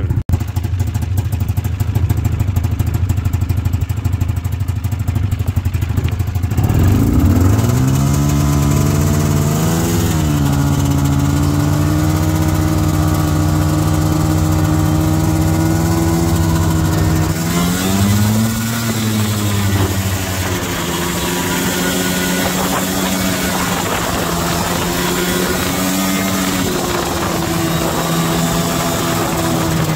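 2000 Polaris 700 snowmobile's two-stroke twin engine idling, then revving up with a sharply rising pitch about six seconds in as the sled pulls away. It holds steady revs for about ten seconds, dips and picks up again, then runs on at varying throttle.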